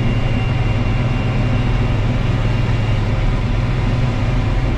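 Case IH 1640 combine running steadily while harvesting soybeans, heard from inside the cab: an even low hum with constant machinery noise over it.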